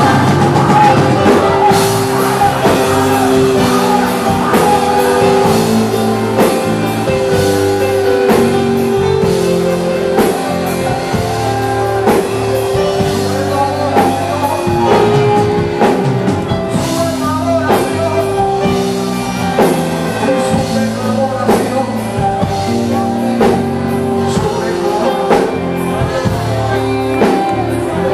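Loud, upbeat Christian praise music from a band with electric guitar and drum kit keeping a steady beat, with singing over it.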